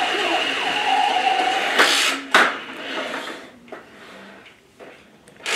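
Battery-powered toy SWAT armored truck running, its small motor whirring under electronic sound effects. About two seconds in there are a few sharp knocks as it is caught and handled, the sound drops away, and it starts up again at the very end.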